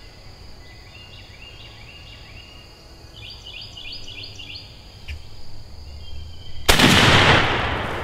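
A single shotgun shot about two-thirds of the way in, a sudden loud blast with a long fading tail, as a strutting gobbler is shot. Before it, quick runs of high chirping trills repeat in the background.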